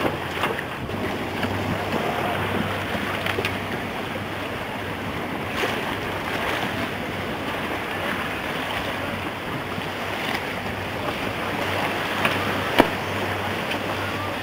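Steady rush of wind and water around a boat at sea, with a low steady hum underneath and a sharp knock near the end.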